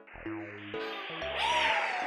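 Cartoon background music with a bouncy, repeating bass line, with a hissing sound effect that swells about halfway through.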